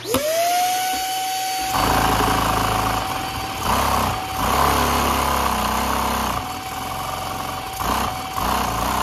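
A handheld vacuum cleaner switches on, its motor whining up to a steady high pitch within a fraction of a second. From about two seconds in, the unlubricated Lego vacuum engine, driven by the suction, runs with a low rattle that rises and falls several times under the whine.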